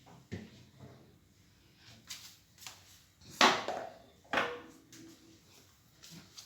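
A series of knocks and clatters from household objects being handled and set down, the two loudest a second apart near the middle, the second ringing briefly.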